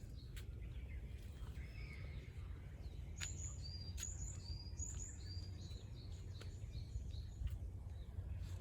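Forest ambience: a small bird chirping a quick series of short, high notes in the middle of the stretch, over a steady low rumble.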